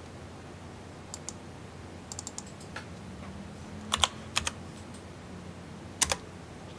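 Keystrokes and clicks on a computer keyboard: a few scattered taps, a quick run of them about two seconds in, and louder single clicks about four and six seconds in.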